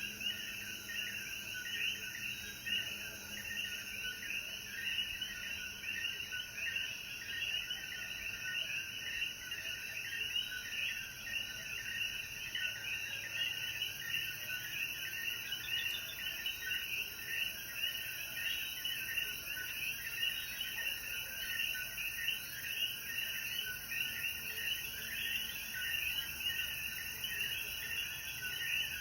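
Chorus of common coquí frogs: many overlapping short, chirping calls, repeated continuously.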